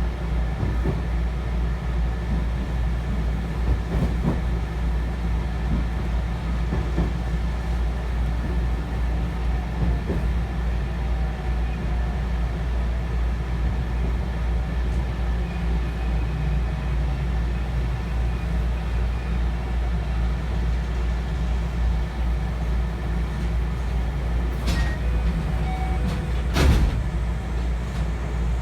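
Cabin noise of a JR West 223 series electric train running: a steady low rumble with occasional faint clicks, and a couple of sharp clacks near the end.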